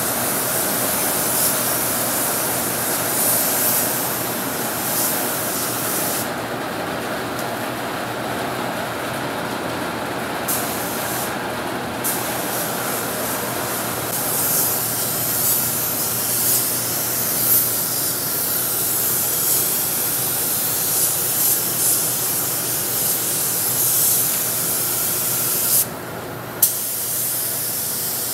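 Gravity-feed paint spray gun hissing as it sprays black primer, over a steady hum. The air spray stops three times as the trigger is let go, the longest pause about four seconds, and comes back each time with a short burst.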